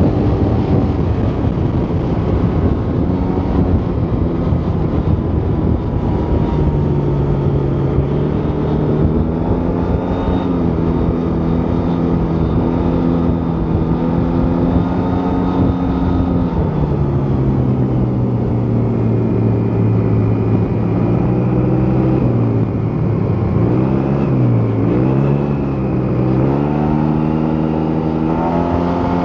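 Yamaha T-Max 530 scooter's parallel-twin engine on its stock exhaust, running while riding over a rush of air noise. The engine note holds steady, drops about two-thirds of the way in, wavers up and down a few times with throttle changes, then climbs again near the end.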